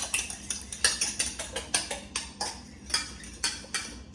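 Repeated light clinks of a kitchen utensil against a dish or pan, about three to five a second and a little uneven.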